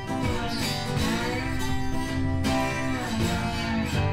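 Background music led by guitar, with bending, gliding notes over a steady accompaniment.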